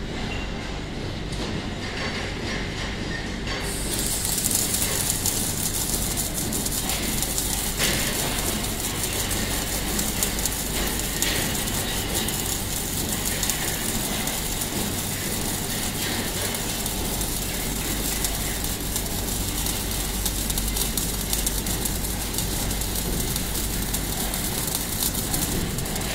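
Automatic MIG welding torches of a pallet racking beam welder arcing on a beam: a steady crackling hiss that starts about four seconds in and cuts off near the end, over the machine's low hum.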